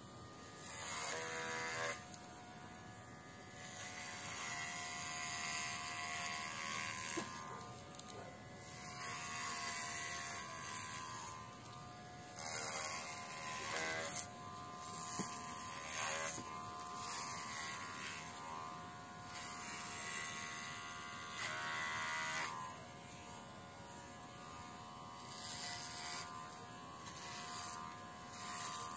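Baorun P2 battery pet hair trimmer buzzing steadily as it clips a dog's coat, its whine swelling and dipping in loudness every second or two as it is worked through the fur.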